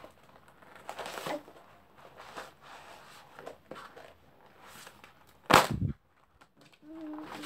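Paper notebooks and a backpack being handled and rustled, with one loud knock about five and a half seconds in. A voice hums a short steady note near the end.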